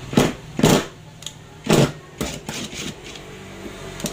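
Repaired brushless cordless impact driver driving a screw into a wood block in short bursts, about half a dozen quick trigger pulls each lasting a fraction of a second; the tool is working again.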